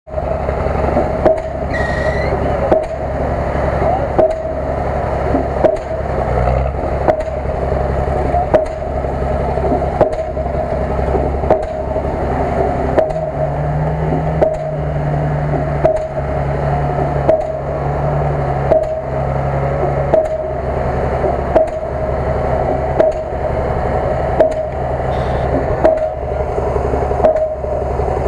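Background music with a steady beat, a little faster than one a second, over a low bass line that shifts pitch partway through.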